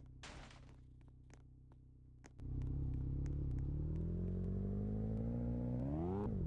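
An engine idling quietly, then accelerating about two and a half seconds in, its pitch climbing steadily. Just before the end the pitch drops sharply and rises again, as at a gear change.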